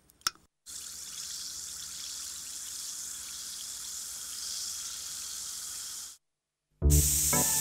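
A steady hiss, like running water or fizzing, lasting about five seconds before it cuts off. After a short gap, music starts loudly near the end.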